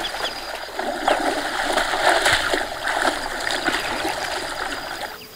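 Water splashing irregularly as macaques play and move through shallow water, stopping abruptly about five seconds in.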